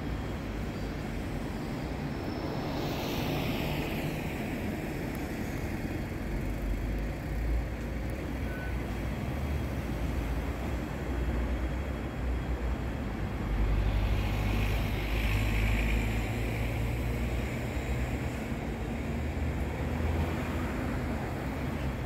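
Road traffic running steadily, with a vehicle passing about three seconds in and another, louder one around fourteen seconds in.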